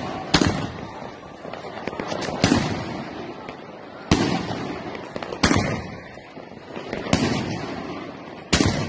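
Aerial firework shells bursting overhead: about six sharp bangs spaced roughly a second and a half apart, each trailing off in an echoing rumble.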